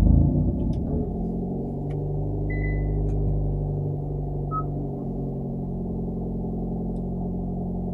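Hyundai Veloster N's 2.0-litre turbocharged four-cylinder just after a push-button start: the revs flare right at the start and fall back to a steady idle. Two short electronic beeps come about two and a half and four and a half seconds in.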